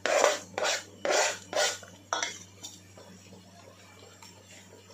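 A plastic chopping board scraped and knocked against the rim of a stainless-steel mixing bowl, about five quick strokes in the first two seconds as chopped nuts and raisins are pushed off into the bowl.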